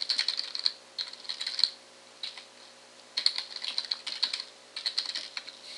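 Typing on a computer keyboard: several quick bursts of keystrokes as a web address is entered, with a lull of about a second and a half a little before halfway.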